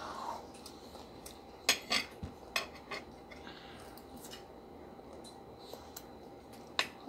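Metal spoons and forks clinking and scraping against dinner plates while eating: a few separate sharp clinks, the loudest just under two seconds in and another near the end.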